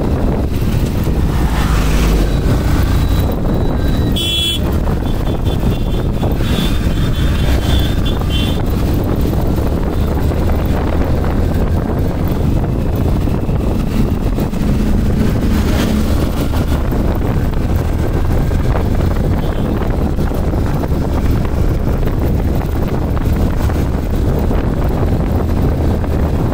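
Wind buffeting the microphone on a motorcycle riding at road speed, with steady engine and tyre noise underneath. A short high horn toot sounds about four seconds in, and a rapid repeating high toot a couple of seconds later.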